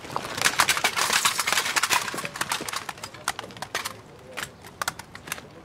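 Many footsteps and a clatter of knocks on rubble from a crowd of soldiers on the move. The knocks come thick and fast for the first two seconds or so, then thin out to scattered steps.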